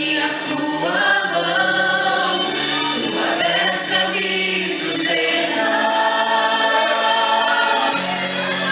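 A choir singing a Christian worship song in Portuguese, several voices holding and moving pitches together.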